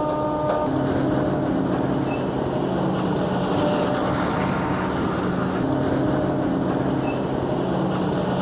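John Deere 9900i self-propelled forage harvester working in maize: a steady machine drone with a low multi-tone hum under an even rushing noise, its pitch dipping slightly about half a second in.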